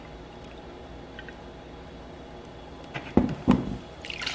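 Almond milk pouring faintly into a plastic measuring cup; a little after three seconds in, two knocks as the carton is set down on the counter, then the milk starts splashing from the cup into a bowl of pancake batter near the end.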